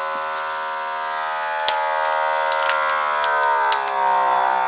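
Vacuum sealer's compressor pump running with a steady hum, drawing the air out of a bag. Its pitch drops from about three seconds in. A few light clicks sound over it.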